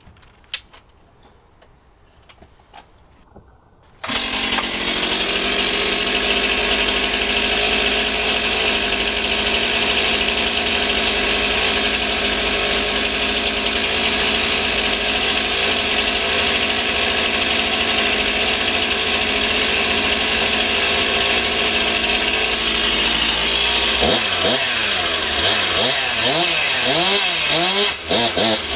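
Stihl MS 261 two-stroke chainsaw engine coming in suddenly about four seconds in and idling steadily. From about 24 seconds the throttle is blipped, the engine revving up and falling back several times.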